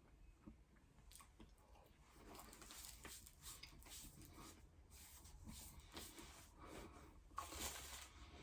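Faint chewing of a vegan sausage roll: soft, irregular mouth and pastry crackles, a little louder near the end.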